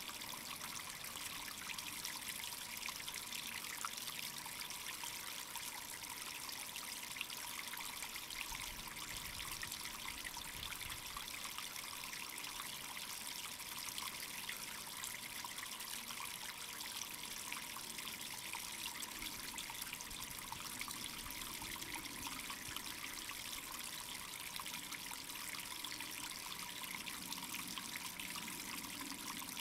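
A steady, even trickle of running water, like a small stream, with a faint steady high tone underneath.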